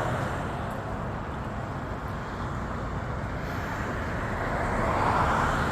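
Road traffic going by: a steady rush of tyre and engine noise that swells as vehicles pass, once around the start and again near the end.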